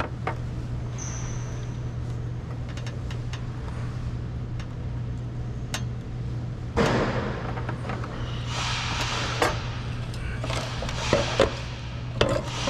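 Scattered clicks and rustling from hand work on tail-light wiring, louder from about the middle, over a steady low hum.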